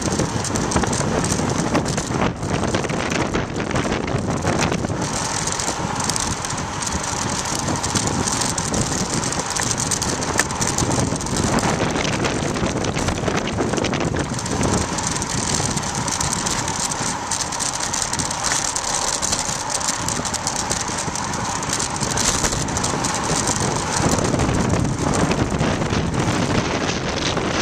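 Road bike coasting fast downhill: the rear freewheel hub ticking, with frequent clicks and rattles over a steady rush of wind on the microphone.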